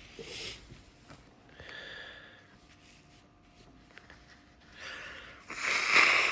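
A man sniffing and snorting hard through his nose, his nose irritated by sneeze powder. A few short breathy sniffs come first, then a much louder rush of air through the nose near the end.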